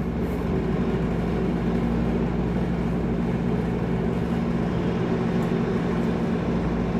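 A steady mechanical hum with a few constant low pitches under an even rushing noise.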